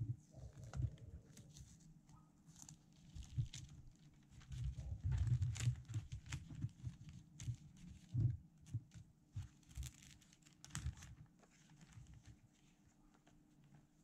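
White paper wrapping around a paint-by-number canvas rustling and crinkling as it is peeled open and unfolded by hand, with soft irregular thumps from handling the canvas on its cardboard tray. It quietens near the end.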